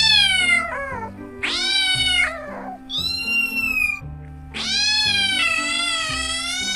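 Domestic cats meowing: four separate drawn-out meows, the third higher and falling in pitch, the last one long, about two and a half seconds.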